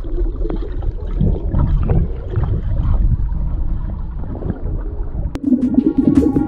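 Muffled underwater rush and gurgling of lake water and air bubbles, heard through an action camera held under the surface. Near the end a steady pitched sound comes in over it.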